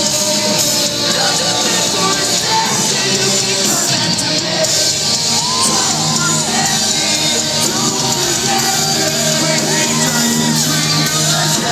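Live rock band playing loud in a large hall: electric guitars and drums under shouted, sung vocals.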